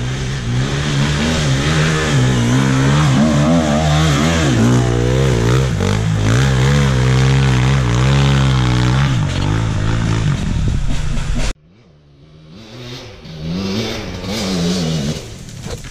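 Dirt bike engine close by, revving hard, its pitch surging up and down in quick pulses. It cuts off suddenly about eleven and a half seconds in, and a quieter, more distant dirt bike engine revs up and down after.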